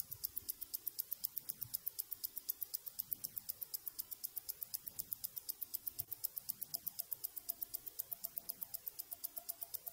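Mechanical automatic wristwatch ticking, close up: a rapid, even tick, several beats a second, from the Time Force Automatic Open Heart's movement.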